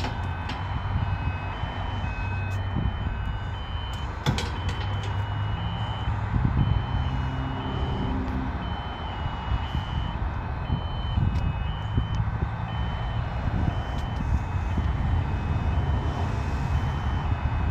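Pedestrian level-crossing warning alarm sounding, a high electronic beep repeating steadily over a constant low rumble. A sharp click comes about four seconds in.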